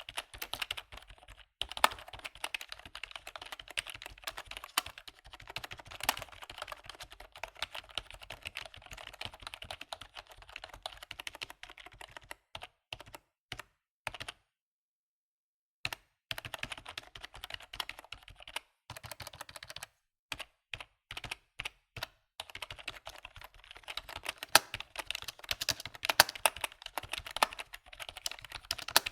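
Typing on a computer keyboard: a rapid, irregular run of key clicks that stops dead for about a second and a half around halfway, resumes more sparsely, then speeds up again.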